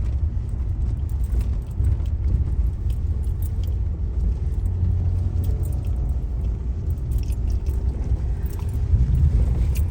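Car cabin noise while driving: a steady low rumble from the engine and tyres, with scattered light clicks and rattles from the car's interior.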